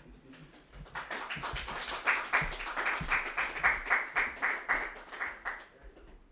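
Small audience applauding at the end of a reading. From about two seconds in, one set of claps stands out in a steady rhythm, and the applause dies away near the end.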